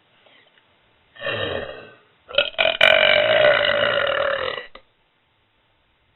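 A person burping deliberately twice: a short burp about a second in, then a long, loud, drawn-out burp lasting about two and a half seconds.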